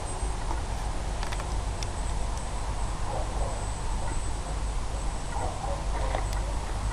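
Wind rumbling on an outdoor microphone, with a faint steady high-pitched whine and a few light clicks.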